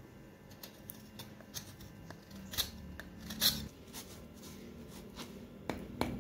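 Stone pestle (ulekan) grinding sambal paste on a flat stone mortar (cobek): irregular gritty scrapes and clicks, with a few sharper knocks of stone on stone.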